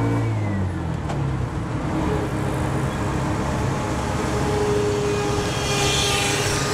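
A 200 cc three-wheeled motorcycle taxi (trimoto) driving in city traffic: its engine runs with road and traffic noise, and the engine note drops in pitch about half a second in.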